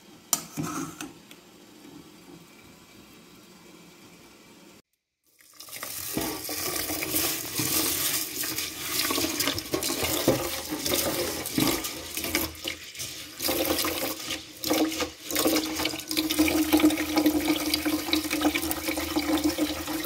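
Stream of water pouring into a metal pot already holding water, loud and steady, starting after a short silent break. Before it, meat sizzling quietly in a frying pan with a fork clinking against the pan near the start.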